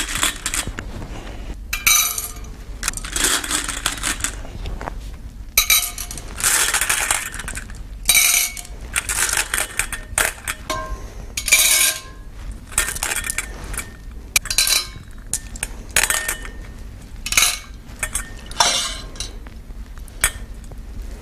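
Small objects dropped one at a time into a small bowl floating in water, each landing with a ringing clink, many times at roughly one-second intervals. Each drop adds weight to the floating bowl.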